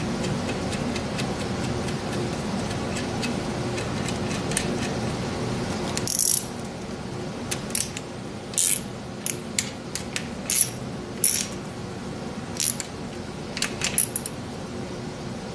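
Quarter-inch drive ratchet snugging the connecting-rod cap nuts on a Ford 429 V8. Short, irregular bursts of metallic clicking and clinks start about six seconds in, over a steady hum.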